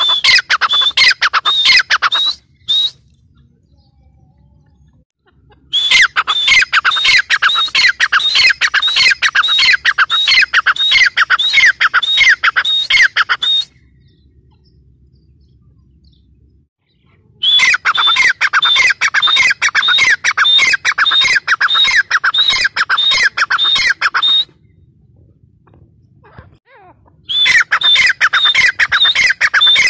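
Francolin (teetar) calling in loud bouts of rapidly repeated, high, falling notes, about three a second. Four bouts of several seconds each, separated by pauses of a few seconds.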